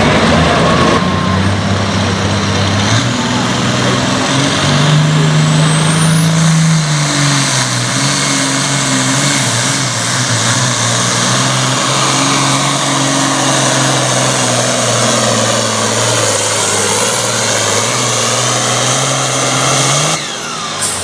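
Super Farm pulling tractor's diesel engine running hard under load during a pull. Its pitch climbs in the first few seconds, then sags slowly as the pull goes on, and the engine note stops abruptly near the end.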